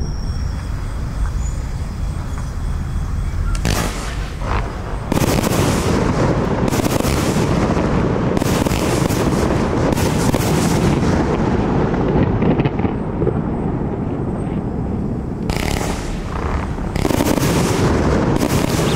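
A 30 mm consumer fireworks compound cake firing rapid salvos. Launch thumps and shell bursts overlap into a near-continuous barrage, growing denser and louder about five seconds in.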